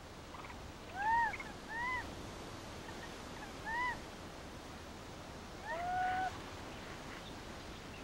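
Young rhesus macaque cooing: three short calls that rise and fall, then a longer, flatter coo about six seconds in, over a steady faint hiss.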